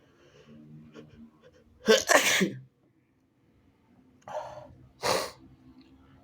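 A person's induced, wet sneezes: a faint voiced build-up, then a loud sneeze about two seconds in, a quick breath in, and a second, shorter sneeze about five seconds in.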